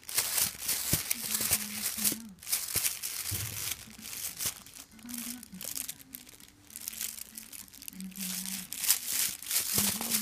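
Crinkling and crackling of a crinkly material being handled and scrunched in play, in dense irregular bursts with a quieter stretch in the middle.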